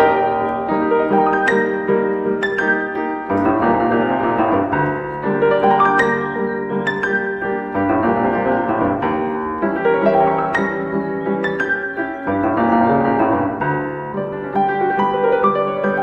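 Background music: a piano playing a melody over sustained chords.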